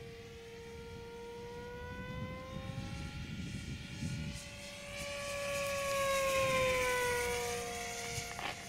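Electric motor and propeller of a Quickie 500 RC plane whining as it flies past overhead. The whine rises in pitch and grows louder from about halfway through, then drops in pitch and fades as the plane passes.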